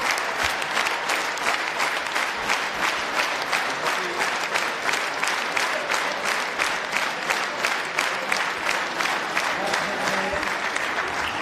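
A large hall full of people clapping together in a steady rhythm, about three claps a second.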